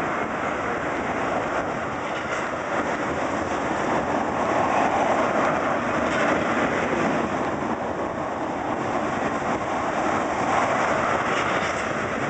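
Freight train of tank cars rolling past, a steady noise of steel wheels on the rails that swells a little midway and again near the end.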